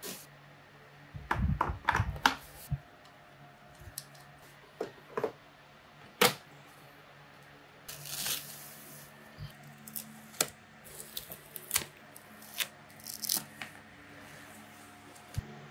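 Dell U2422H monitor stand parts being unwrapped and handled: rustling and tearing of the foam wrap, broken by sharp clicks and knocks as the metal parts are picked up, set down and fitted together.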